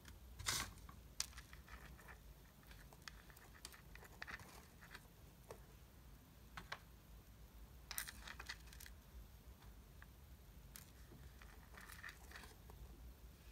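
Faint scattered clicks and rustles of elastic hair ties being handled and pressed into a small cardboard box, with a sharper tap about half a second in and a few small clusters of clicks later on.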